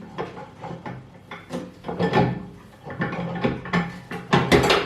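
Microwave turntable parts (the glass tray and its roller ring) knocking and clinking as they are fitted into the oven cavity and shifted about, several separate knocks with the loudest near the end. The tray will not seat on its support, so it will not rotate.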